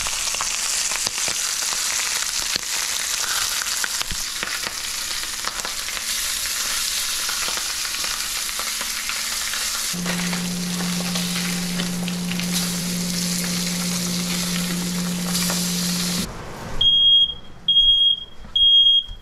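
Pompano and whiting fillets sizzling in hot avocado oil in a stainless steel pan, with a low steady hum joining partway through. The sizzling cuts off, and a smoke alarm sounds three loud, high beeps, set off by the lightly smoking oil.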